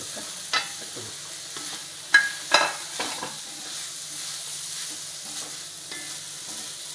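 Food sizzling in oil in a frying pan as bread pieces are stirred through a spicy onion, capsicum and tomato masala. A spatula clacks against the pan a few times, loudest a little after two seconds in.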